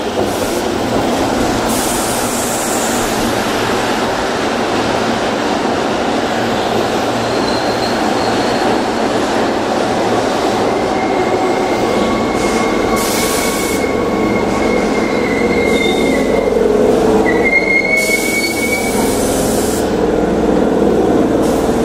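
Keihan electric train running along the station track: loud, continuous rolling noise from the wheels and cars, with thin high-pitched wheel squeals in the second half.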